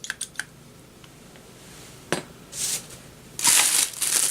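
Packaging being handled during unboxing: a few light clicks and knocks at first, then plastic wrapping crinkling loudly from about three and a half seconds in.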